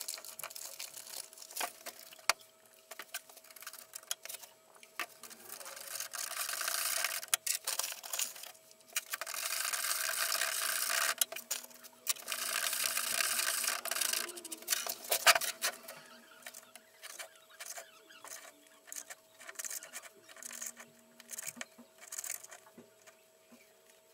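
Refractory mortar being mixed in a small plastic bucket: dry powder poured in from its paper bag, then a tool scraping and stirring round the bucket in three longer gritty bouts, with scattered clicks and knocks of the tool against the bucket.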